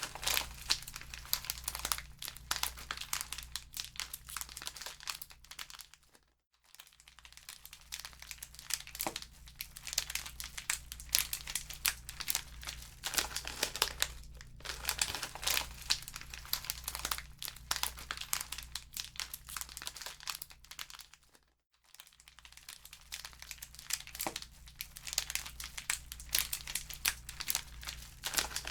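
Wood fire crackling in a fireplace: a dense, irregular run of pops and crackles over a steady low hum. It dips almost to silence twice, briefly, about six and a half seconds in and again around twenty-two seconds in.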